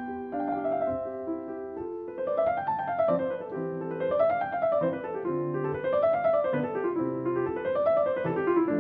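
Background piano music: sustained chords at first, then from about two seconds in, runs of notes that climb and fall again over and over, above low bass notes.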